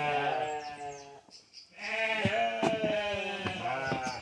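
Sheep bleating, several long wavering calls overlapping. They stop briefly about a second in and start again before the second second is out. The ewes are penned apart from their lambs and calling for them.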